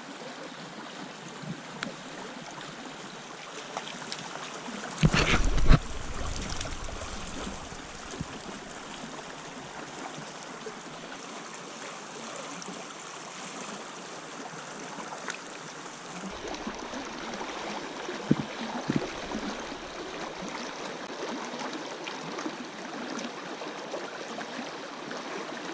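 Small brook running over rocks, a steady rush of water. About five seconds in there is a brief loud rumble, and a few faint knocks come later.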